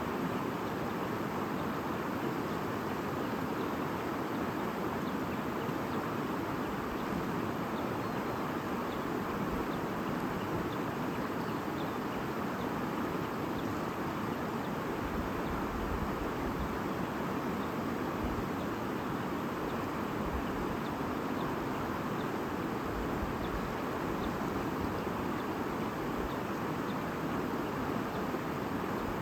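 Stream flowing: a steady, unbroken rush of running water.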